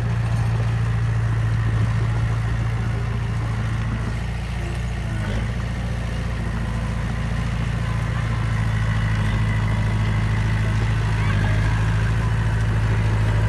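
Crawler bulldozer running with a steady low engine hum as it pushes loose soil with its blade.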